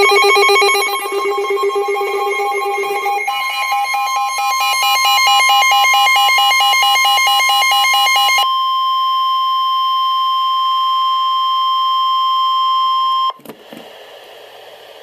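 NOAA Weather Radio warning alert: a receiver's electronic alarm beeps rapidly in several tones, and from about three seconds in it plays over the steady 1050 Hz warning alert tone. The beeping stops a little past halfway. The alert tone cuts off suddenly near the end, leaving a couple of clicks and faint hiss.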